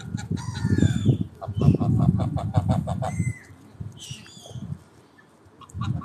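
Domestic geese calling: a fast run of repeated gabbling notes with a few higher gliding calls, quieter and more scattered in the second half. A loud low rumble lies under the calls for roughly the first half.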